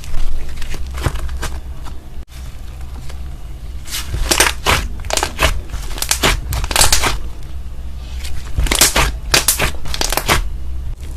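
Slime being squeezed and pressed by hand, giving clusters of sharp crackling, popping sounds over a low steady hum, with a brief break about two seconds in.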